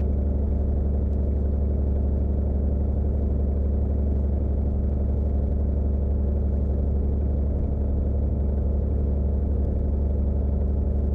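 Jabiru 250 light aircraft's air-cooled six-cylinder engine and propeller running steadily at taxi power as the plane lines up on the runway before takeoff: an even, deep drone that neither rises nor falls.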